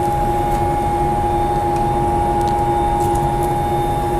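Steady machine hum: two held tones over a low rumble, unchanging.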